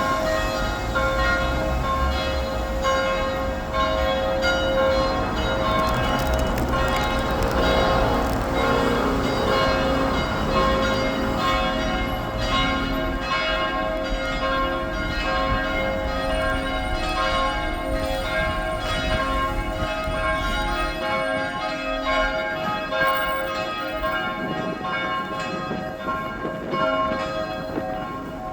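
Machine-rung church bells pealing: many overlapping strikes with long sustained ringing tones. A low rumble sits underneath and stops about three-quarters of the way through.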